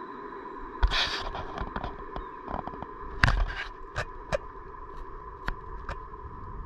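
A Vy class 75 (Stadler FLIRT) electric train pulling away along the track: a steady high electric whine over a low rumble. Scattered sharp clicks and knocks, the loudest about a second in and just after three seconds.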